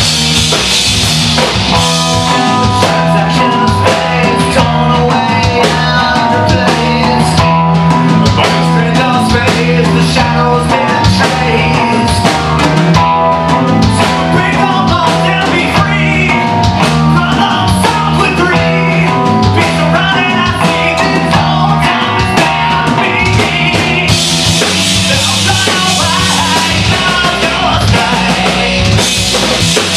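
Live rock band playing: electric guitar, bass and drum kit with a singer's vocals. The cymbals grow louder near the end.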